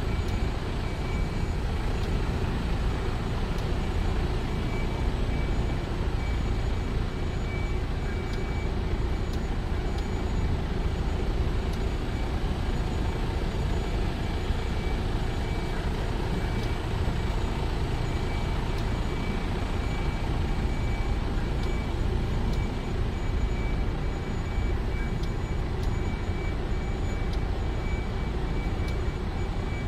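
Truck running steadily, a continuous low engine and road rumble, with a faint high beep repeating over it.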